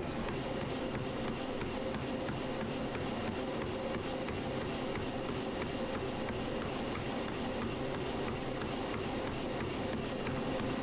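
Footfalls of a runner on a motorised treadmill, about three a second, over the steady hum of the treadmill's motor and belt.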